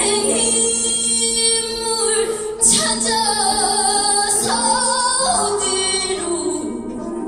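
A woman singing a Korean folk song (minyo), holding long notes and bending the pitch between them over a steady low accompaniment.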